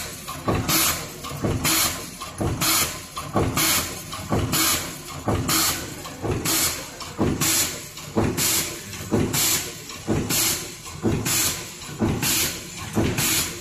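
Full-automatic metal zipper-teeth CNC gapping machine (ZY-105M-F) cycling steadily, about one stroke a second, each stroke a clunk with a burst of hiss.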